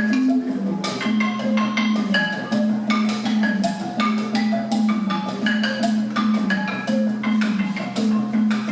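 Live sound-healing music: quick struck notes of mallet-type percussion over a steady low drone that swells about once a second.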